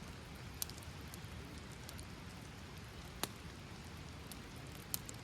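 Rain falling with a steady patter, and a few sharp ticks of drops landing now and then, the loudest a little after three seconds in.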